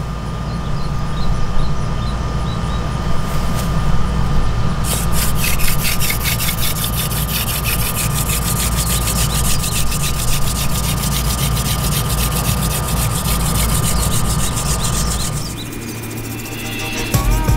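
Hand-drill friction fire: a wooden spindle spun back and forth between the palms, grinding into the notch of a wooden hearth board, over a steady low hum.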